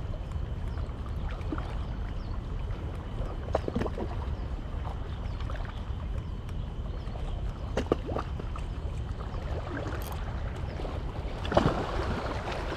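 Steady wind noise on the microphone over sea water washing against shoreline rocks, with a few brief clicks.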